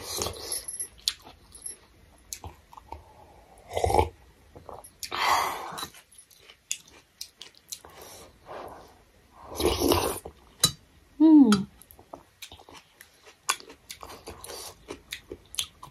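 Close-miked chewing of thukpa noodle soup, in irregular bursts. Small clicks of a spoon against a stainless steel bowl come in between, with one brief falling vocal murmur about eleven seconds in.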